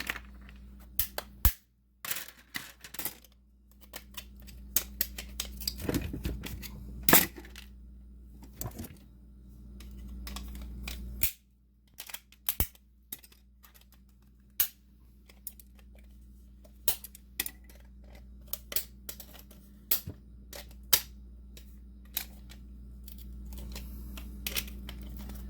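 A plastic video game cartridge shell being forced open without removing its security-bit screws: a long run of sharp, irregular plastic clicks, cracks and snaps, the loudest about six and seven seconds in, over a low steady hum.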